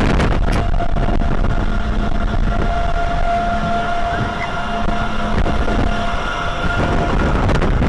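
Vekoma suspended looping coaster train running along its steel track: a loud, steady rumble with a steady high whine over it.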